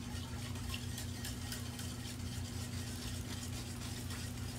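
Stick blender running steadily in a bowl of cold-process soap batter, blending lye solution into the oils to bring it to emulsion, with faint light ticks against the bowl.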